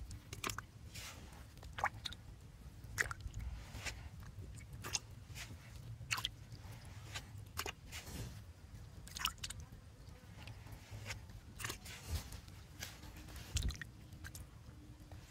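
A hand squelching and digging through wet mud and muddy water, with irregular sharp wet pops and smacks over a low steady rumble.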